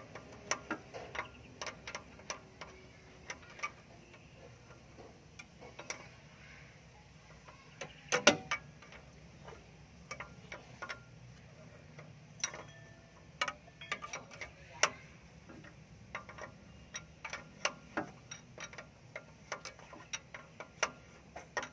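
Scattered metallic clicks and clinks of hand tools while a replacement oxygen sensor is fitted and tightened into the exhaust from below. One louder knock comes about eight seconds in.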